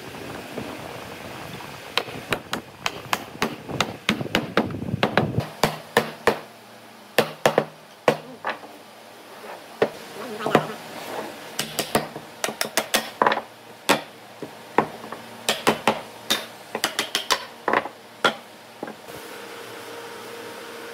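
Irregular wooden knocks and taps, some in quick clusters, as pine frame rails and panel pieces are fitted and tapped together on a wooden workbench, with a short scrape of wood sliding on wood about four seconds in.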